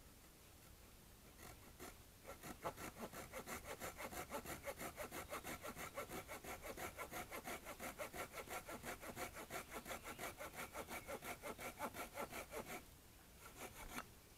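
Fiskars retractable hand saw with a 160 mm blade cutting through a branch about 50 mm thick: quick, even back-and-forth strokes that start about two seconds in and stop shortly before the end.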